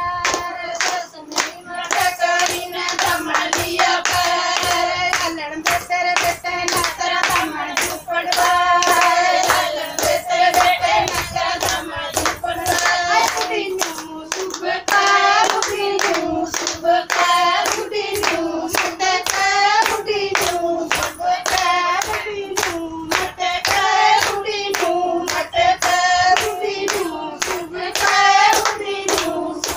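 A group of women singing a Haryanvi folk song in unison to a steady beat of hand-clapping.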